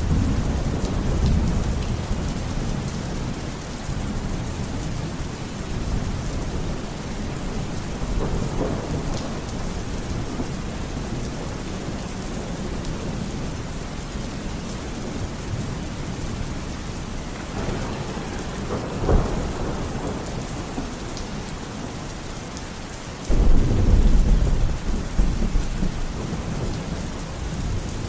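Steady heavy rain with thunder rolling through it: a low rumble at the start, a short sharper clap about 19 seconds in, and a loud deep rumble that comes in suddenly about 23 seconds in.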